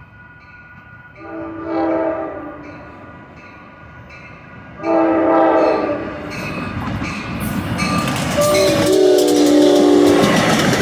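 Amtrak passenger train's air horn sounding a chord of several notes in three blasts: a short one about a second in, a longer one near five seconds and a third around eight seconds. Wheel and rail clatter grows louder toward the end as the train comes close.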